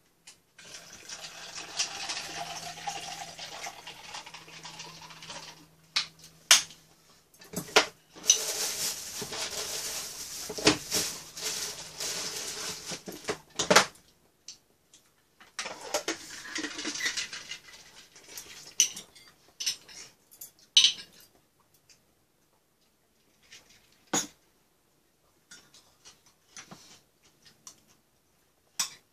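Metal spoons and chopsticks clinking and scraping against bowls and a metal tray while eating. There are long stretches of scraping and handling noise broken by sharp clinks in the first two-thirds, then only scattered clinks.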